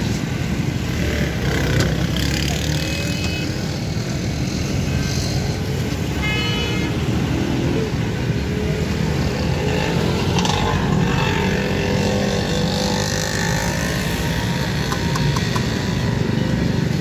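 Steady engine noise of passing road traffic, motorcycles and cars running, with a brief high-pitched tone about six seconds in.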